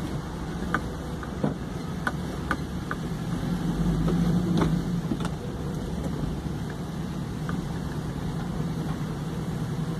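Truck engine running at low speed, with tyre and road noise on wet asphalt, heard from inside the cab. There are scattered light ticks and clicks, and the engine swells a little about four seconds in.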